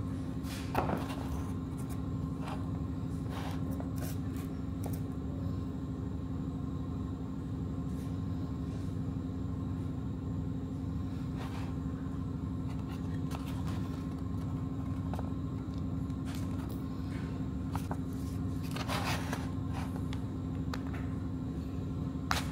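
A steady low mechanical hum runs throughout. Over it come scattered metal clicks and, about 19 seconds in, a short scrape, typical of tools and parts being handled during brake caliper work.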